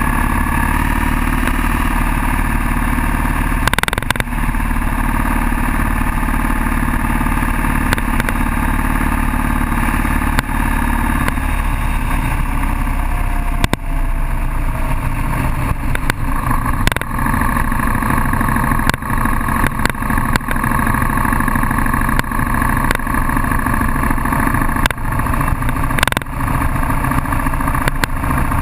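Cruiser motorcycle engine running at steady road speed with wind noise, as heard from a handlebar-mounted camera, with brief knocks now and then.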